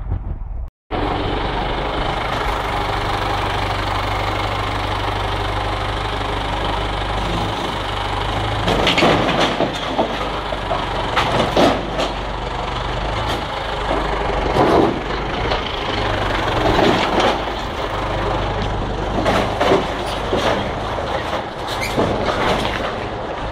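Tractor diesel engine idling steadily, with irregular knocks and crunches over it from about eight seconds in. The sound cuts out for a moment about a second in.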